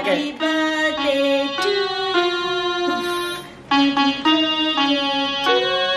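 Portable electronic keyboard played by hand: a simple melody of sustained notes, each held about half a second, with a short break a little past halfway.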